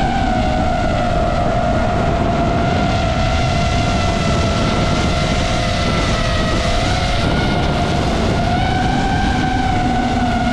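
DJI FPV drone's motors and propellers whining in flight over a steady rush of air. The pitch dips and rises a little as the throttle changes.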